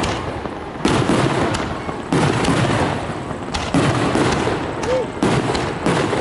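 Fireworks display: a series of sharp bangs about a second apart, each trailing off in a rumbling echo.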